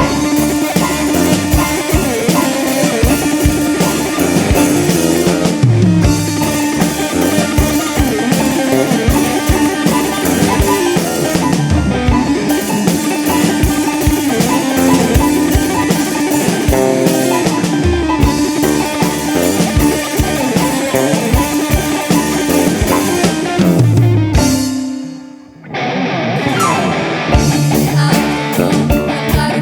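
Live ensemble music with drums and plucked strings over a steady held tone. The music thins and dips in level near the end, then a new section begins.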